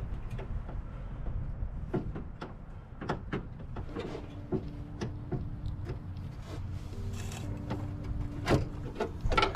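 Scattered knocks and clicks of parts and tools being handled while a radiator is fitted into a car's engine bay.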